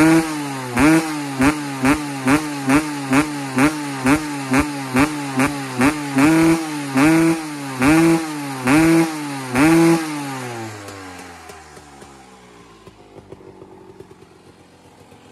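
1996 Kawasaki KX250's single-cylinder two-stroke engine revved in quick throttle blips, roughly two a second, each rising and falling in pitch. About ten seconds in the revving stops and the engine sound drops away to a faint level.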